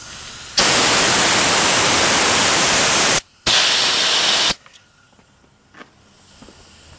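Compressed-air undercoating spray gun with a suction bottle spraying Fluid Film rust inhibitor: two loud, steady hissing bursts, the first about two and a half seconds long, then a short break and a second of about a second. The trigger is released about four and a half seconds in.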